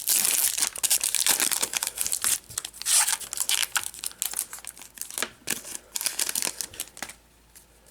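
Plastic wrapper of a Topps baseball card pack being torn open and crinkled. The crackling is dense at first, thins out, and stops about seven seconds in.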